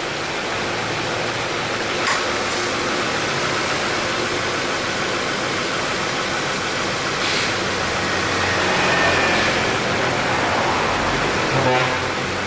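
2018 Subaru Impreza 1.6 engine bay with the engine running and the air conditioning on: a steady whooshing noise, a sharp click about two seconds in, and a brief rough noise near the end. The noise is the AC compressor engaging abnormally, which the shop puts down to light compressor wear, with weakening cooling.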